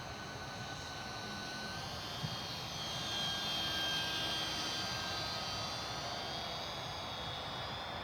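Small brushless electric motor and propeller of an ultra-micro RC Cessna 182 in flight, a high thin whine that grows louder about three seconds in and eases off again as the plane passes.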